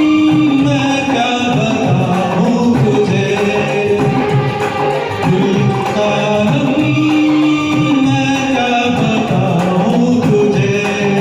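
Karaoke performance of a Hindi film song: a singer's held, sustained melody lines over a recorded backing track.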